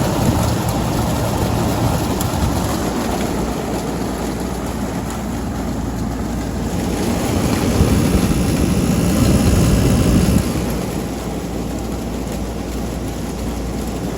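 Frigidaire FFTH102WA2 wall air conditioner running: a loud rushing fan over a low rumble, louder for a few seconds past the middle. Its base pan is full of water, which the paddle fan churns, and the owner blames the noise on that water.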